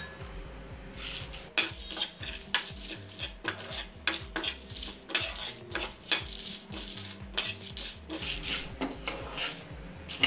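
A spoon stirring and scraping across a non-stick frying pan in repeated short strokes, about two a second, with light clinks against the pan, as coriander seeds, cumin and dried red chillies are roasted in it.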